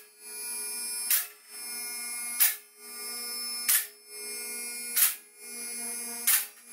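Electric-hydraulic power unit of an Atlas 408-SL four-post car lift running with a steady hum as the ramps rise, with five sharp clicks about every 1.3 seconds as the safety locks drop past the notches in the posts.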